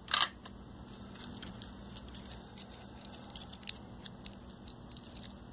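Light handling noises from a spool of copper desoldering braid and its loose end being handled: scattered small ticks and rustles, with one brief sharper rustle just after the start, over a low steady hum.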